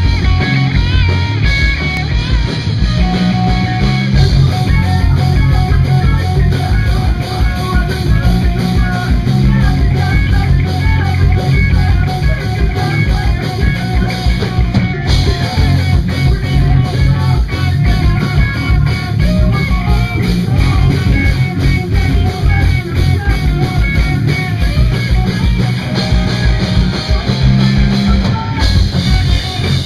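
A punk rock band playing loud and live, with electric guitars over a steady drum-kit beat.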